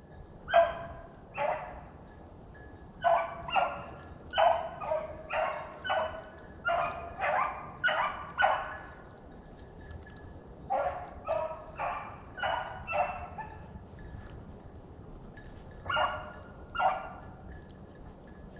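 A beagle baying as it runs a rabbit's trail. The bays come about two a second in runs, with a pause a little past halfway and two last bays near the end.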